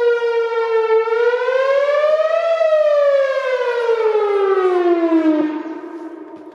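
Whelen Vortex R4 outdoor warning siren sounding its wail tone. The pitch sinks, rises for about a second and a half, then glides down for about three seconds. Near the end it turns much quieter as the tone winds down.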